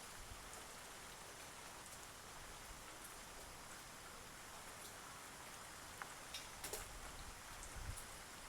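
Faint steady outdoor hiss with scattered light ticks, a few slightly louder about six to seven seconds in.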